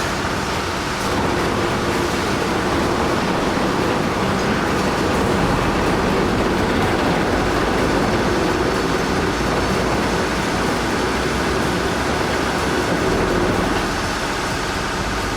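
Heavy wheel loader's engine running steadily under load, a dense, even mechanical rumble.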